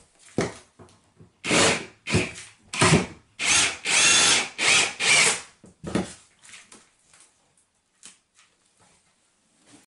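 Cordless drill run in a string of short trigger bursts over a few seconds, its motor whine rising and falling with each burst, working at the acrylic whirlpool tub's back flange. A few faint clicks follow.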